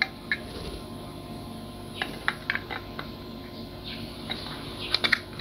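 Small plastic clicks and taps as a circuit board is pushed and fitted back into its plastic power-supply case by hand, a few scattered knocks over a steady low hum.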